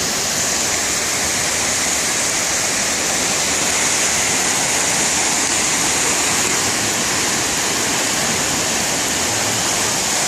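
Heavy downpour of rain: a loud, steady hiss that does not let up.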